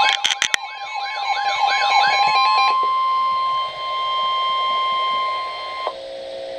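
Weather radio alert tone: a steady, piercing single-pitch tone, the 1050 Hz NOAA Weather Radio warning alarm that precedes an NWS warning message, held until it cuts off about six seconds in. A warbling siren sweeps up and down over it for the first couple of seconds, with a few sharp clicks at the very start, and a quieter low drone follows once the tone stops.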